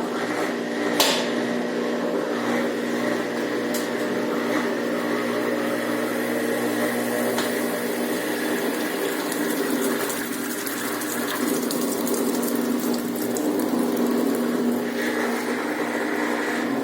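Brastemp Ative 11 kg washing machine running: a steady motor hum with water rushing through it, and one sharp click about a second in.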